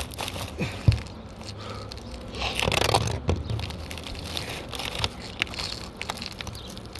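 Asphalt roof shingles being lifted and pried at with a hammer to free their nails: crinkling and scraping, scattered clicks, a sharp knock about a second in and a longer scrape near the middle.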